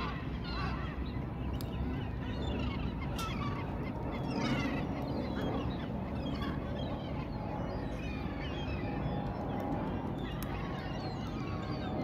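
A flock of gulls calling overhead: many short overlapping calls at a steady level, with no single call standing out.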